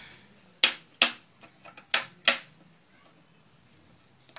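Sharp mechanical clicks from the automatic voltage stabilizer under repair: two pairs, a second or so apart, with a few fainter ticks between them.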